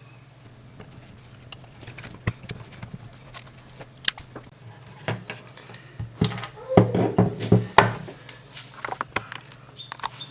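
Small metal clicks and scraping as the desoldered metal shield of a satellite receiver's tuner is worked loose from the circuit board, with scattered light clicks and a busier stretch of scraping about six seconds in.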